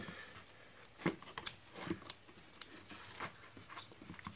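Scattered light clicks and knocks of a chainsaw short block being worked by hand into the plastic saw body, parts touching and scraping as it is eased into place.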